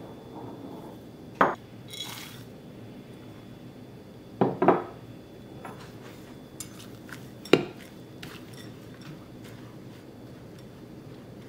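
Kitchen utensils clinking against a glass mixing bowl while flour and chopped pistachios are added and stirred in with a fork. There are sharp clinks about a second and a half in, a quick pair about four and a half seconds in, and another about seven and a half seconds in, with faint light scraping and ticking between them.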